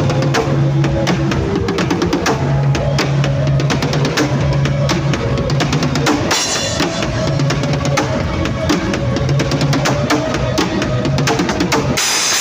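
Drum kit played busily, with dense, rapid hits, over a backing track with a held bass line; the bass drops out near the end.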